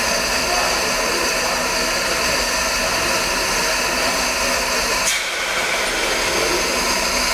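Steam locomotive Mount Lyell No. 1 blowing off steam through its spring-loaded safety valves: a loud, steady hiss, a sign of full boiler pressure. The hiss briefly dips with a click about five seconds in.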